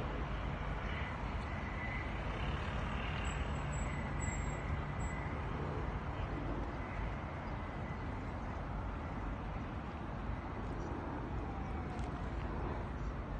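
Steady hum of road traffic from cars on a nearby road, with no single vehicle standing out.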